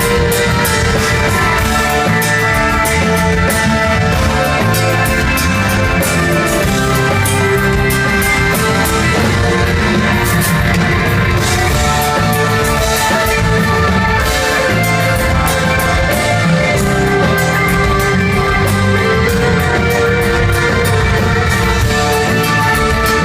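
Live progressive rock band playing an instrumental passage: electric guitar over bass and drums, steady and loud throughout.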